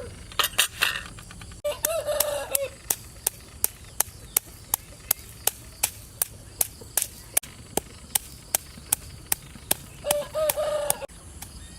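Chickens calling twice, about 2 seconds in and again near the end, over a steady run of sharp chopping knocks, about three to four a second, like a knife on a cutting board.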